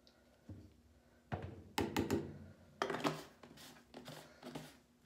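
Irregular knocks and thunks from handling a large plastic laundry detergent jug at a washing machine, the loudest cluster about two seconds in.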